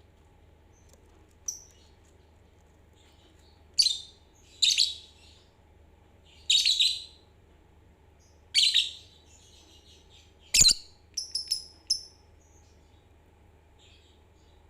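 Pet lovebirds calling: a series of loud, shrill chirps a second or two apart, then a quick run of shorter, higher chirps near the end, with a sharp click among them.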